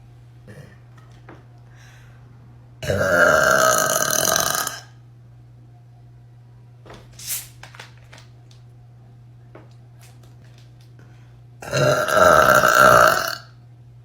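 Two long, loud burps from a woman, each lasting about two seconds, the first about three seconds in and the second near the end.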